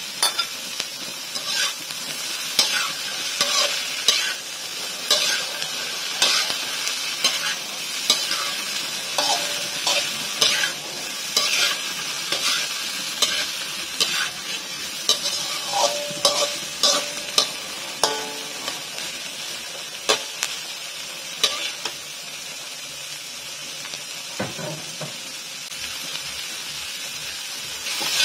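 Fried tofu with onion and chili sizzling in a hot pan while being stirred, a steady hiss broken by frequent short scrapes and knocks of the utensil against the pan.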